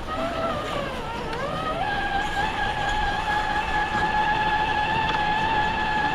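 RC rock crawler's electric motor and gear train whining. The pitch wavers down and up for about two seconds, then holds steady at one even pitch.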